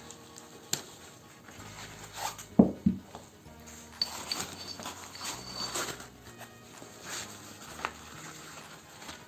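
Handling noises of the airsoft grenade and its pouch: scattered light clicks and two soft thumps about two and a half seconds in, over quiet background music.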